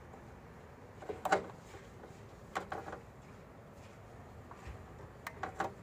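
A few light clicks and knocks: a clamp meter's jaws being opened and closed around a wire in a household consumer unit, to measure leakage current. There is a group of clicks about a second in, another at about two and a half to three seconds, and two sharp clicks near the end.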